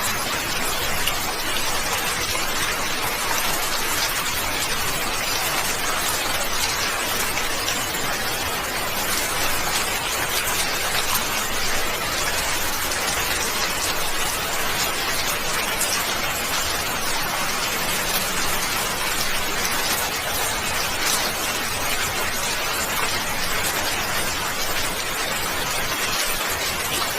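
Steady hiss of falling water, even and unbroken, with a fine spattering texture.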